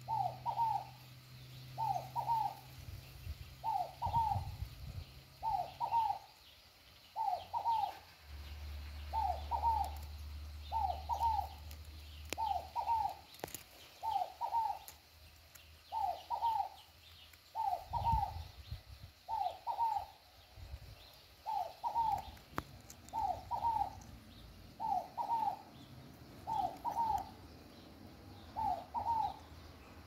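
Scaled dove (fogo-apagou) calling over and over, each call a quick pair of cooing notes, repeated evenly about once a second.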